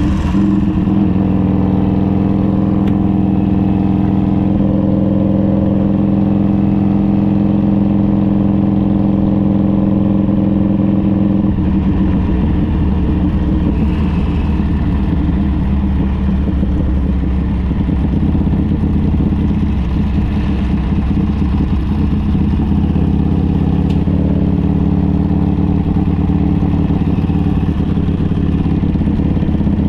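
Harley-Davidson trike's V-twin engine running steadily on the move, its note shifting slightly about twelve seconds in.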